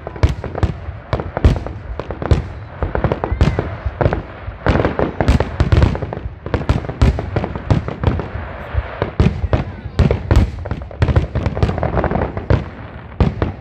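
Fireworks display: aerial shells bursting in quick succession, a dense string of booms and crackles several a second.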